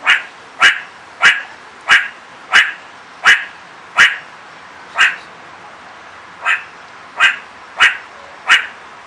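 A meerkat giving its alarm call: short, sharp barks, about three every two seconds, with one pause of about a second and a half past the middle before they resume. The alarm here has no apparent cause.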